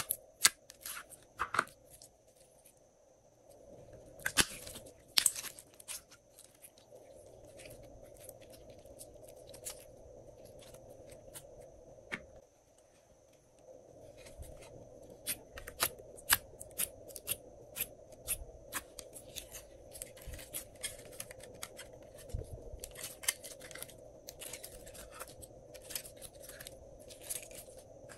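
Glossy slime being squeezed, poked and pulled by hand, giving irregular sharp sticky clicks and pops, with a couple of brief pauses.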